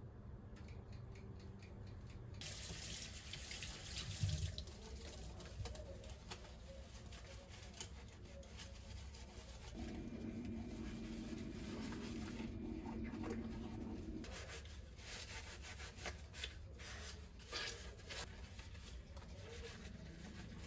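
Kitchen tap turned on about two seconds in, water running into a sink, with scattered clinks and knocks. A steady low hum joins for about four seconds midway.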